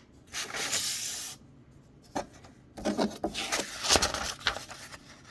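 Blade of a freshly sharpened Case XX slim trapper pocket knife cutting during a sharpness test: one long rasping stroke near the start, then a run of shorter rasping strokes from about three seconds in.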